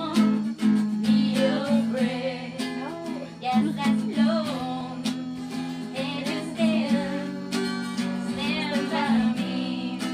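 A voice singing a melody over a strummed guitar.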